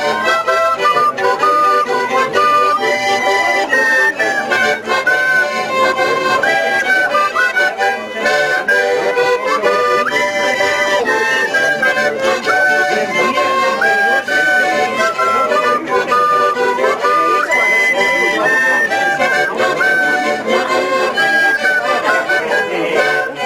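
Austrian folk dance tune played live on a button accordion with fiddles, a lively stepping melody over steady chords.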